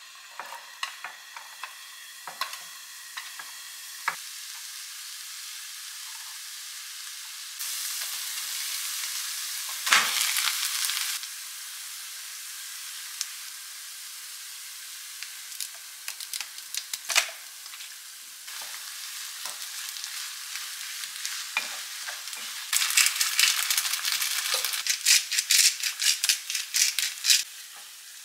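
Rice and diced chicken frying in butter in a nonstick frying pan, a steady sizzle with taps and scrapes of a wooden spatula. The sizzle swells for a few seconds a third of the way in, and near the end rapid stirring strokes run over a louder sizzle as the ketchup-coated chicken rice is stir-fried.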